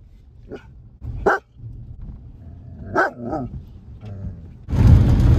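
A dog barking a few short times, the loudest bark about a second in and a quick double bark about three seconds in; the dog is worked up and aggressive. Near the end a loud steady noise of rain and the moving car cuts in suddenly.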